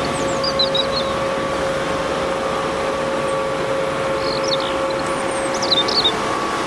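Small electric motor driving a toy tractor's rotary broom attachment, running steadily with a constant whine as the brushes spin. A few short high chirps sound over it.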